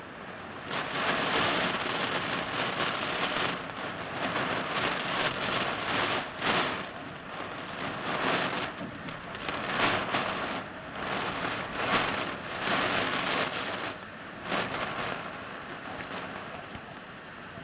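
Heavy typhoon rain driven by gusting wind, swelling loud and easing again in repeated surges.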